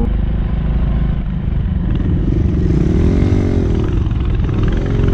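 Small four-stroke pit bike engine being ridden, revving up and down, its pitch rising and falling in the middle as the throttle is worked.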